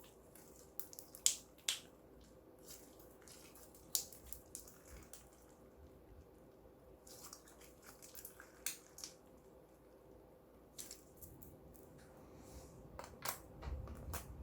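Clear slime being kneaded and mixed by hand, giving irregular sticky pops and squelching clicks.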